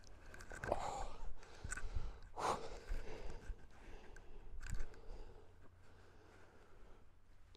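Nylon tent fabric and clothing rustling in short bursts as a man climbs out of a small tent and stands up, with a sigh or two among them. A low rumble of wind on the microphone runs underneath.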